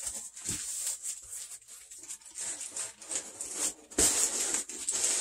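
Cardboard shipping box being opened by hand: flaps scraping and rustling with short crackles, growing louder about four seconds in.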